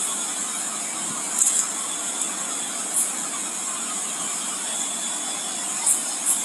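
Night-time forest insects chirring in a steady, high-pitched chorus, with short louder chirps standing out every second or so over a constant hiss.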